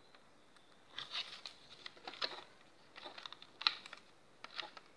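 Light plastic clicks and rattles of a Lego Glock 43 model being handled and turned in the hands, in several short clusters starting about a second in.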